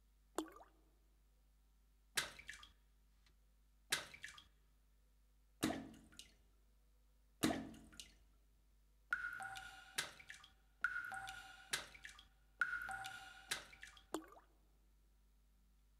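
Sparse, quiet water-drop-like plinks from an electronic soundtrack, about one every two seconds. About nine seconds in, three longer sounds follow, each carrying a held high tone.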